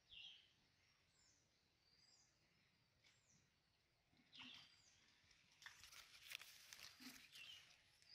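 Faint bird calls: a short falling chirp repeated about once a second, with a few louder calls among them. About five and a half seconds in comes a two-second run of crackling rustle and splashing as the cast net is hauled in from the pond.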